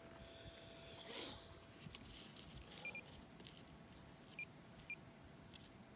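Metal detector giving three short, high beeps, about three, four and a half and five seconds in: the target tone for more metal still in the dug hole. Faint soil rustling comes a second in.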